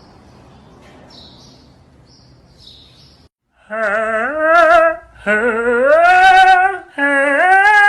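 A voice giving three long, wavering, sung-sounding calls, each rising in pitch, after a few seconds of faint high chirps.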